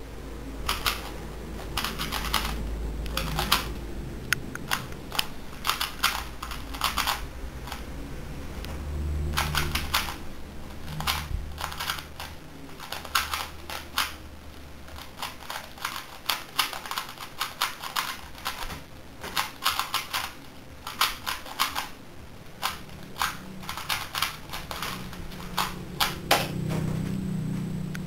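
A plastic 3x3 Rubik's cube being turned rapidly during a speed solve: runs of quick clacking layer turns, broken by short pauses between move sequences.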